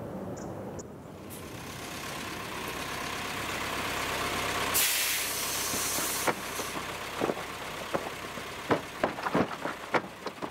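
A rushing hiss swells over several seconds to a loud burst about five seconds in and cuts off abruptly at about six seconds. A run of sharp, irregular knocks and taps follows.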